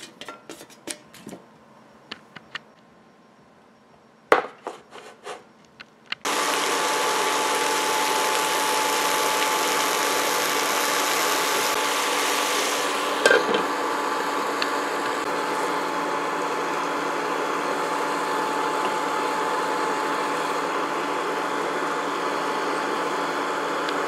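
Light clatter of sliced onions dropping into a frying pan, then about six seconds in a portable induction cooktop set to sear switches on: a steady loud noise with a few held tones, from its fan and the heating pan, broken by one knock partway through.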